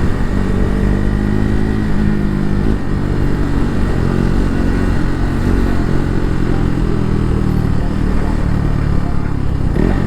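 KTM RC 390's single-cylinder engine running under way, its pitch rising and falling with throttle changes, with road and wind noise underneath.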